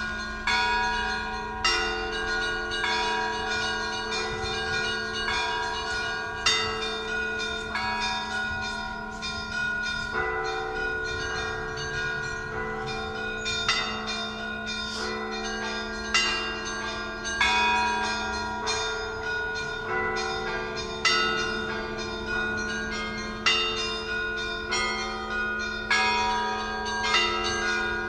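Russian Orthodox church bells rung by hand by a bell-ringer. Quick, irregular strikes of the smaller bells ring out over the lingering hum of the larger bells, with a heavier accented stroke every few seconds.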